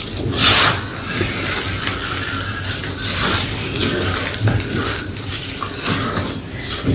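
Block of gym chalk (magnesium carbonate) being crushed, a continuous crunching and crackling, with a louder crumbling burst about half a second in and another around three seconds in.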